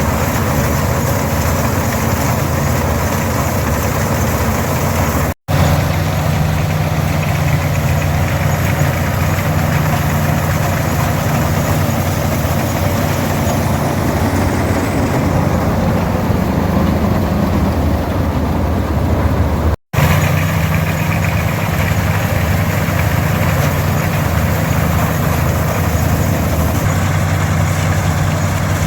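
International 460 diesel tractor's D-282 engine running steadily under load, pulling and driving an International 82 pull-type combine harvesting oats. The sound cuts out for an instant twice.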